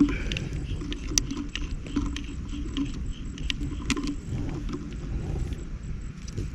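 Scattered light clicks and small rattles of fishing gear being handled, over a steady low rumble.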